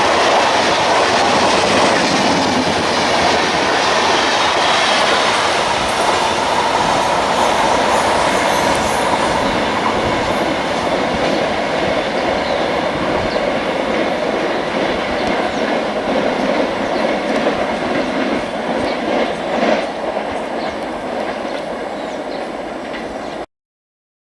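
Passenger coaches of an express train running past at speed, wheels clattering over the rail joints with some squeal, slowly fading. The sound cuts off suddenly near the end.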